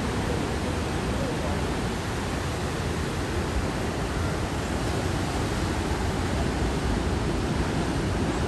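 Ocean surf from a large storm swell breaking and washing through, a steady rushing noise.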